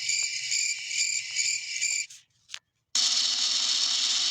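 Two comedy meme sound effects played back one after the other from a sound effects app. The first is a high-pitched pulsing sound, about three pulses a second, that stops about two seconds in. After a short silence, a steady noisy sound starts abruptly.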